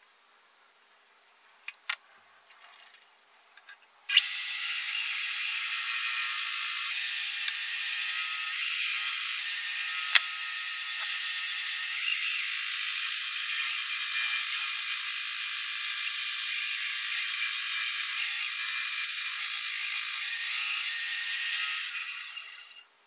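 Bandsaw running and cutting a wooden hatchet handle blank: a steady high-pitched noise that starts abruptly about four seconds in and fades out near the end, after a few faint clicks.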